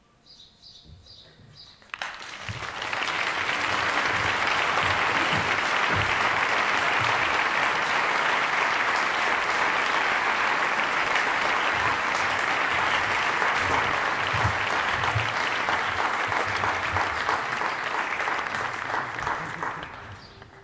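Audience applauding at the end of a piece, starting suddenly about two seconds in after a brief hush, holding steady, and fading away near the end.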